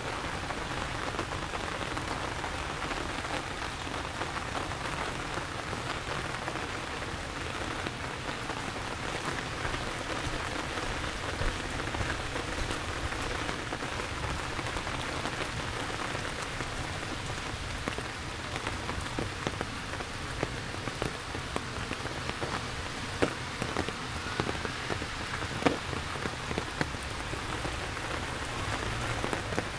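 Heavy rain falling steadily, an even hiss of drops on hard surfaces, with a few sharper drop taps now and then.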